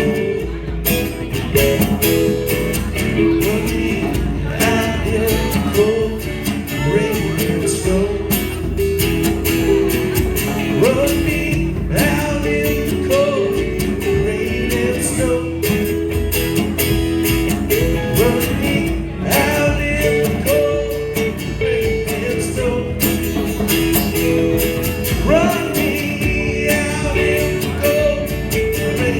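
Live band playing a country-blues song on guitars, with singing.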